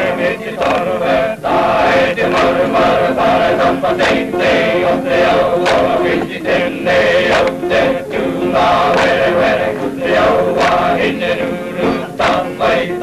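A group of Maori performers singing together in chorus, men's voices prominent, the song carrying on without a break.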